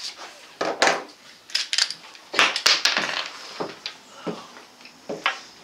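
A Glock 27 pistol being unloaded, with a series of sharp clicks and clacks as the magazine comes out and the slide is worked to eject the chambered round.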